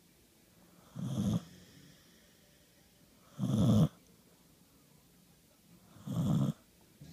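Dog snoring in its sleep: three loud snores of about half a second each, roughly two and a half seconds apart.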